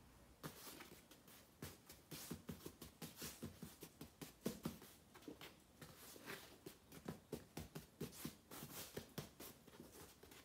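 Near silence in a small room, broken by faint, irregular light ticks and taps, several a second.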